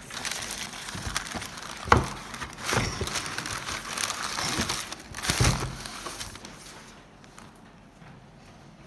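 Tissue wrapping paper crinkling and rustling as it is pulled out of a new sneaker and its cardboard shoe box, with louder crackles about two and five seconds in. It dies down after about six seconds.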